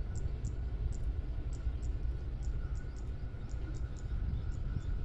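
Steady low rumble of a distant diesel locomotive drawing closer along the track, with faint high ticks a few times each second over it.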